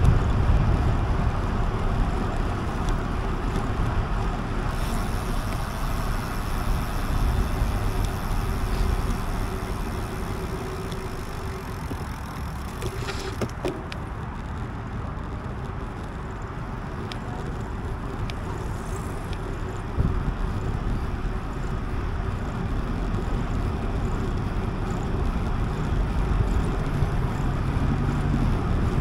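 Steady rushing noise of a bicycle ride: wind buffeting the microphone with tyre and road rumble, and a few faint clicks.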